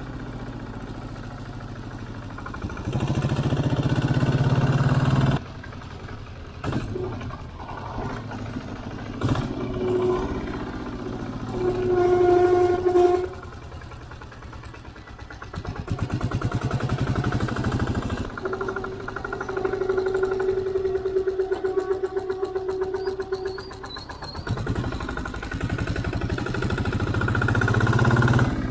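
Rear drum brake squealing under braking: a steady pitched squeal held for a second or several seconds at a time, several times, over the vehicle running. The squeal persists even though the drum has been dismantled and cleaned and the linings are not glazed.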